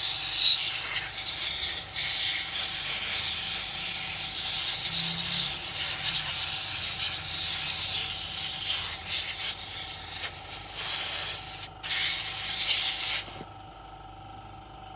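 Steady, loud hiss of a high-pressure jet on the car. It cuts out for a moment near twelve seconds, resumes, then stops abruptly about thirteen and a half seconds in.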